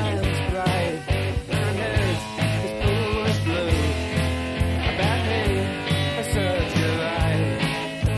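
Rock music: an instrumental stretch of guitar over bass and a steady drum beat.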